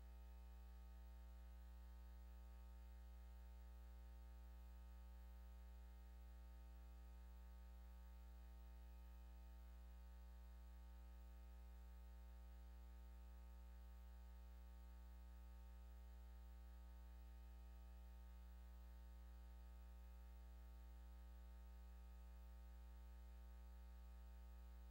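Near silence, apart from a faint, steady low hum with a row of higher overtones.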